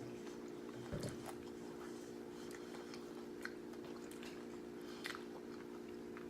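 Mouth-close chewing and occasional crunches of nachos made with nacho cheese Doritos, with a few sharp crunches scattered through, over a steady low hum.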